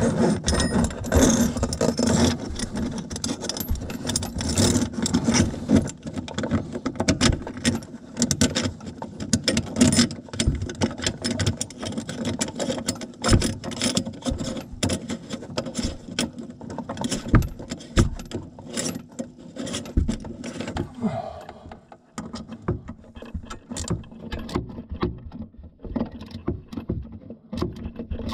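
A new kitchen mixer tap's fixing being tightened up from under the sink with a hand tool: a steady clatter of small metallic clicks and knocks that thins out about three-quarters of the way through.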